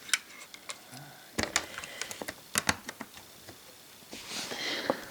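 Scattered light clicks and taps of a plastic model diesel locomotive being handled and turned around on its track.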